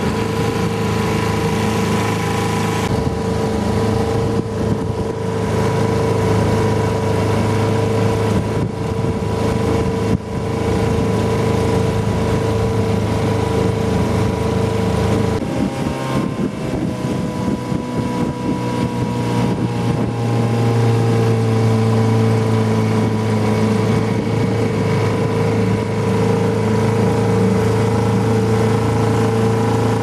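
Small boat's outboard motor running steadily, its note shifting slightly about halfway through.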